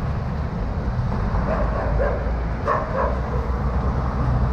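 A dog barking about four times, starting about a second and a half in, over a steady low rumble of wind on the microphone.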